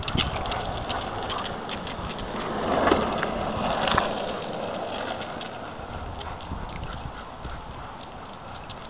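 Longboard wheels rolling on asphalt, a steady rumbling hiss that grows louder about three seconds in, with scattered light clicks and taps throughout.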